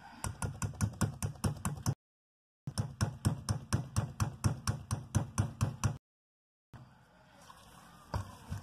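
Cake dough being beaten in a mixing bowl: quick, even strokes at about five a second that break off twice for a moment, then fade to faint scattered knocks near the end.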